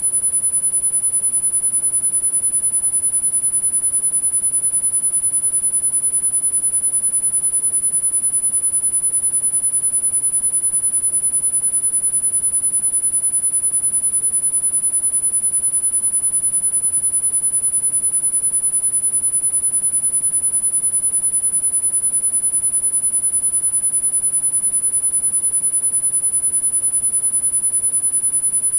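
A steady, very high-pitched electronic sine tone, a tinnitus-frequency masking tone, held unchanged with a faint hiss beneath it.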